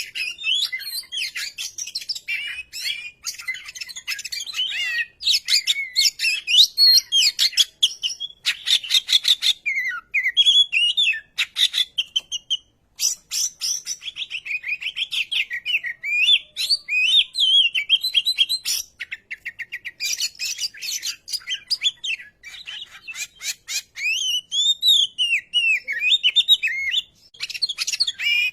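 Oriental magpie-robin (murai kampung) singing a long, varied song of loud whistles, warbling phrases and rapid chattering trills, with a brief pause about twelve seconds in.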